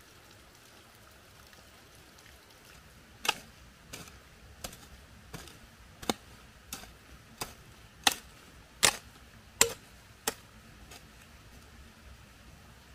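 A series of about eleven sharp, evenly spaced strikes, roughly one every three-quarters of a second, the loudest near the end of the run.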